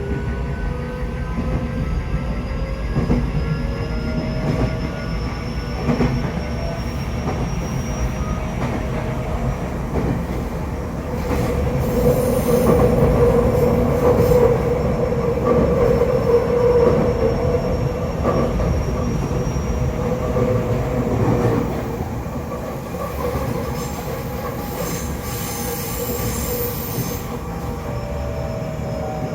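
Tokyo Metro 8000 series electric train running, heard from motor car MoHa 8209: steady wheel-and-rail rumble under several parallel whines from the drive. It grows louder about twelve seconds in and eases again about nine seconds later. The whine is split into two clashing tones, which the uploader thinks is because only one axle of the bogie has had its wheels re-turned.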